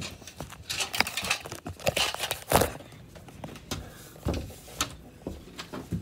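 Handling noise: a string of knocks, bumps and rustles, as from cloth brushing against a handheld phone's microphone while it is moved about, with the loudest bump a little over halfway through.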